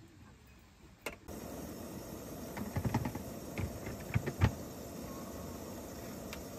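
Steady hiss of an Iwatani portable butane stove's lit burner under an aluminium kettle, starting about a second in, with a handful of sharp knocks and taps about two to four and a half seconds in.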